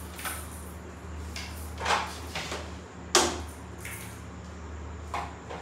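A few light knocks and clicks as a phone charger and its cable are handled, the sharpest a little past halfway, over a steady low hum.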